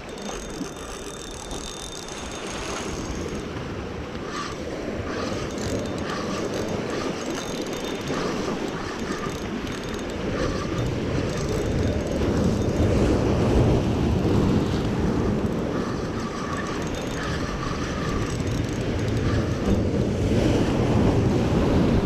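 Surf washing over jetty rocks and wind on the microphone, growing louder about halfway through, with the cranking of a Shimano Sedona spinning reel as a hooked fish is reeled in.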